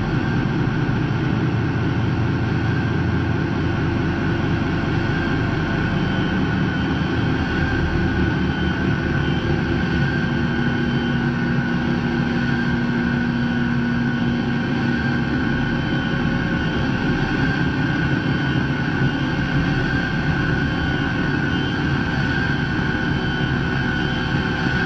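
Guitar noise run through a pedalboard of effects: a dense, steady droning wall of noise with held tones layered through it, one low tone swelling up from about ten to fifteen seconds in.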